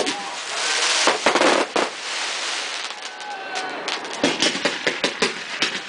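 Fireworks display: shells bursting with sharp bangs, then a dense crackling hiss for about a second and a half, and a quick run of pops near the end.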